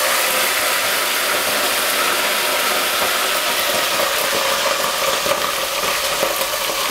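Dried omena (small Lake Victoria sardines) sizzling loudly and steadily as they fry in a hot aluminium pot.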